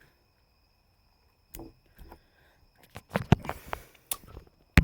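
Close-up eating sounds: scattered wet mouth clicks and smacks while chewing, starting about a second and a half in, with a sharper click near the end.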